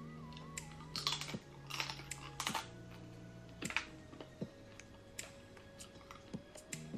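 Close mouth sounds of eating seafood boil by hand: a run of sharp, wet clicks and smacks from lips and sucking sauce off fingers, thickest in the first half. Soft background music with long held notes plays underneath.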